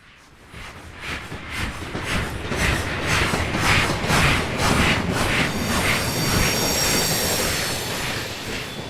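Steam locomotive approaching and passing, its exhaust chuffing in an even beat of about two to three a second that grows louder from near silence. A high steady squeal joins over the chuffing a little past halfway.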